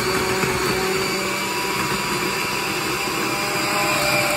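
Electric countertop food processor running steadily with a whirring motor whine as its blade grinds cooked chicken and bacon into a fine mince.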